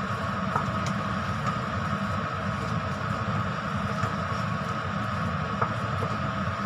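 A steady machine hum throughout, with a few faint knocks of a wooden spatula against a stainless steel pot as thick glutinous-rice mixture is stirred.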